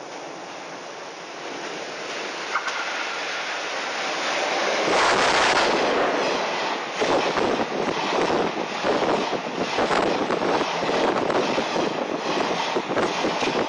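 Twilight Express sleeper train, hauled by an EF81 electric locomotive, approaching and passing at speed close by. A rushing noise builds and turns suddenly loud about five seconds in as the locomotive goes by. The coaches' wheels then clatter over the rail joints, with wind buffeting the microphone.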